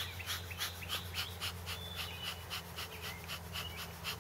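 Faint, rapid rhythmic puffs of air, about four a second, like quick breaths or a bellows being pumped, over a steady low hum.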